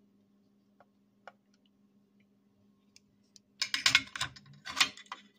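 Steel dial caliper being handled and set against a metal chainring sprocket to measure it: a few faint clicks at first, then a flurry of louder sharp metallic clicks and scrapes in the last two seconds.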